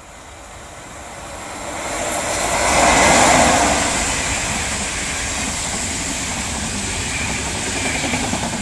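MÁV class V43 electric locomotive hauling passenger coaches through at speed. The noise builds as it approaches and is loudest as the locomotive passes about three seconds in, then the coaches' wheels run steadily past on the rails.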